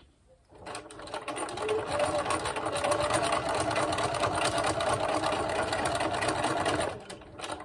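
Electric sewing machine free-motion stitching with its feed dogs dropped: the motor whines under a fast, even run of needle strokes. It starts about half a second in, speeds up over the next second or so, runs steadily, and stops about seven seconds in.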